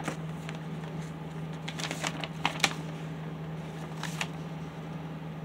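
Paper rustling and crinkling as a folded warranty sheet is handled and unfolded, in a few short bursts, the sharpest about halfway through. A steady low hum runs underneath.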